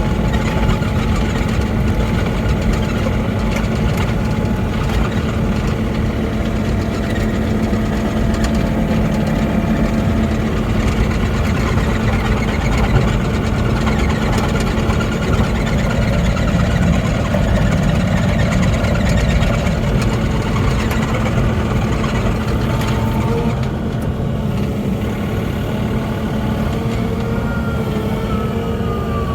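Mini excavator engine running steadily with a constant low hum, a little quieter from about three-quarters of the way through.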